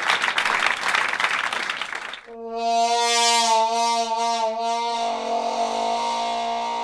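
A dense rush of noise that stops about two seconds in, giving way to a single long note from a wind instrument, held with vibrato and changing tone partway through.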